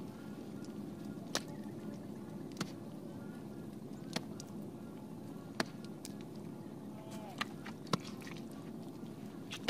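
A short hand hoe chopping into wet mud, about seven sharp strikes one to two seconds apart, over a steady low hum.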